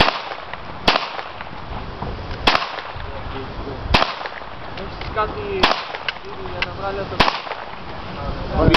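Five gunshots fired one at a time, about a second and a half apart, each a sharp crack with a short echo.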